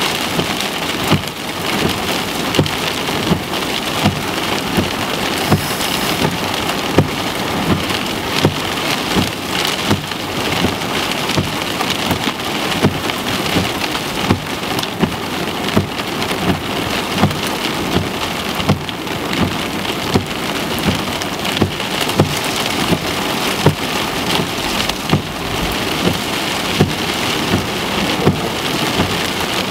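Heavy thunderstorm rain drumming on a car's roof and windshield, heard from inside the cabin: a steady loud hiss of rain with sharp knocks about every second.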